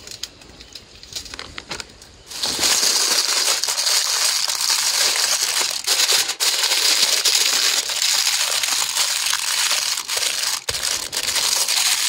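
Aluminium foil crinkling loudly and continuously as it is folded and crimped shut into a food packet, starting about two seconds in after some quieter handling.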